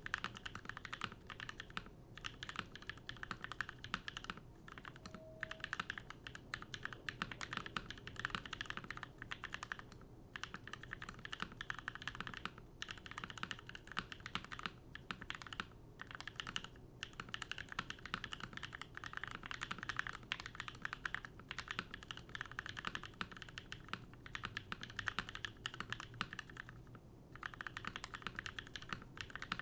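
Typing on a Keycult No. 1 TKL mechanical keyboard with NovelKeys Cream linear switches: a continuous fast run of keystroke clacks, broken by a few short pauses.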